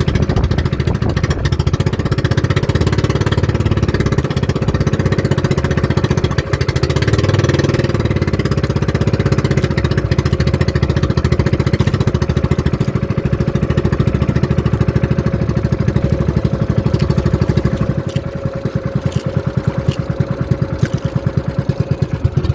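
A small boat's engine running steadily under way, with a fast even pulsing, easing off somewhat near the end.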